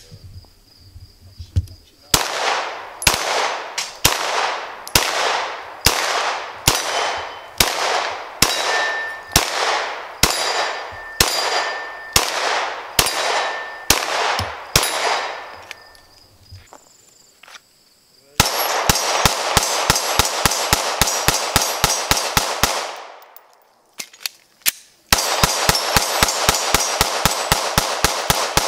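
Glock 19 9mm pistol firing with steel targets ringing: about fifteen slow, evenly spaced shots roughly a second apart, each echoing, then two fast strings of rapid fire. The pistol keeps cycling without a stoppage in an uncleaned, unlubricated endurance test.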